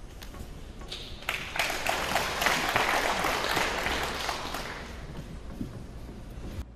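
Snooker audience applauding a shot: a few scattered claps, then applause swelling about a second in, holding, and slowly fading before it cuts off suddenly near the end.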